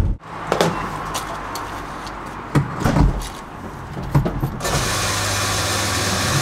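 Clicks and knocks of a fuel nozzle and filler being handled at a petrol pump, then from about four and a half seconds in a steady hiss and hum as the pump dispenses fuel into the car.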